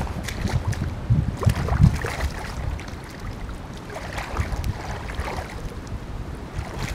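Wind gusting on the microphone, a low rumble, with water splashing and sloshing at the creek's edge as a common carp is let back into the water, in two bouts about a second in and again around four seconds in.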